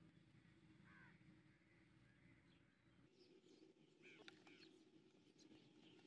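Faint chirps of small wild birds over a low steady outdoor background: a couple of short arching calls about a second in, then a quick cluster of chirps around four seconds.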